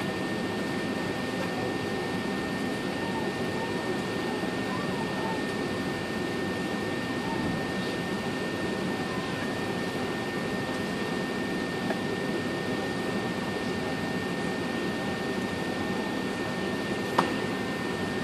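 Steady cabin hum inside an Airbus A380 on the ground, the drone of its engines and air conditioning, with a thin steady high tone over it. A single sharp click near the end.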